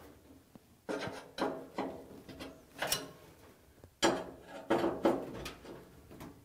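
Hand screwdriver tightening the sheet-metal screws that hold a dryer's mica heater housing, heard as several short bursts of clicking and scraping with pauses between them.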